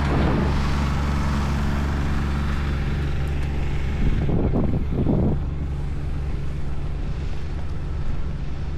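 Wind buffeting the microphone while riding, a steady low rumble with a few brief louder gusts about four to five seconds in.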